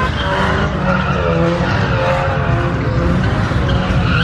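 A car's tyres squealing in a long, wavering screech as it slides around on the pavement, with its engine running hard underneath.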